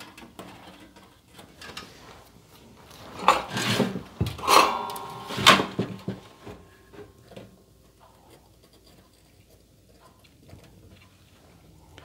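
UPS cabinet being turned and shifted on a wooden workbench: light handling rustle, then about three seconds in a few seconds of knocks and scrapes with a brief metallic ring, followed by faint small clicks of wire and soldering-iron handling.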